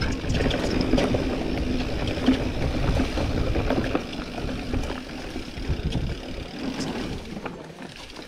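Mountain bike descending a rough trail: low rumbling wind and tyre noise on the microphone with scattered rattles and knocks from the bike, easing off about halfway through.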